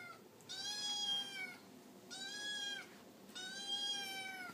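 Orange tabby kitten meowing for food: three drawn-out meows, each nearly a second long, with the end of another right at the start.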